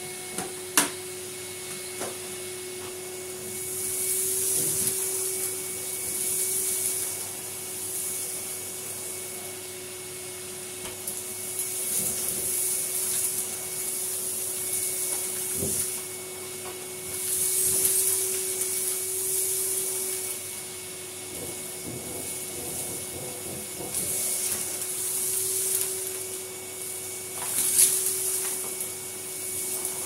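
Numatic Henry cylinder vacuum cleaner running steadily with a constant motor whine while its floor tool is pushed back and forth over carpet, sucking up clumps of dirt and fluff in repeated swells of hissing. A sharp click about a second in.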